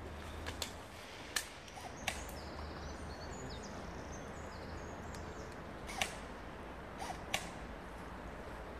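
Scattered single sharp cracks of airsoft guns firing, about six, unevenly spaced. A bird chirps in short high notes around the middle.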